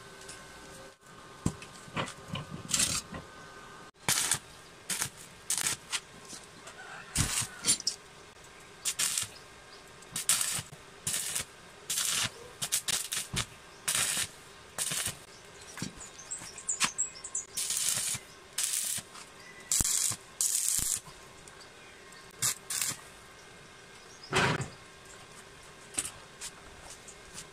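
Arc welding on a steel frame: a series of short tack welds, each a brief crackling hiss of under a second, with a faint steady hum between them.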